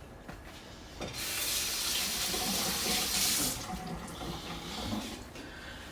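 Water running from a tap into a sink, starting about a second in and running strongly for about two and a half seconds before dropping to a fainter flow.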